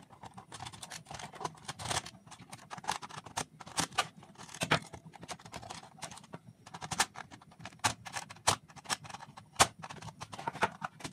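Irregular small clicks and taps of a screwdriver and bare wire against the metal terminal screws and plastic bodies of the switches, as a wire loop is fitted across the switch terminals and the screws are worked.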